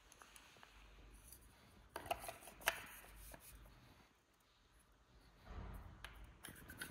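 Faint handling of plastic powder-coating gun parts: a few sharp clicks about two seconds in as a black plastic sleeve is fitted onto the gun's barrel, then rubbing and light knocks near the end.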